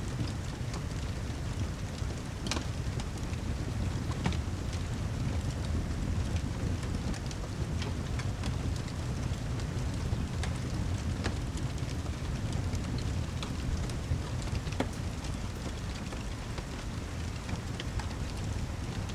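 Steady heavy rain with a deep, continuous low rumble underneath and scattered sharp crackling pops from a wood fire.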